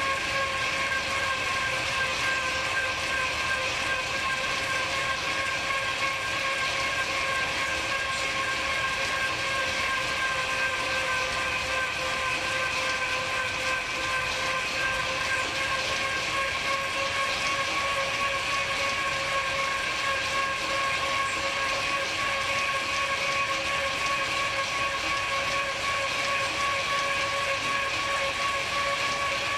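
Wahoo Kickr direct-drive smart trainer running under steady pedalling: a continuous whine of several steady tones over drivetrain hiss, rising slightly in pitch near the end.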